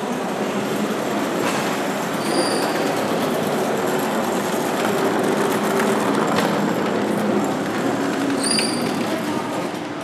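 Wooden trolley's castor wheels rolling over a polished concrete floor: a steady rumble, with two short squeaks from the wheels about two and a half seconds and eight and a half seconds in.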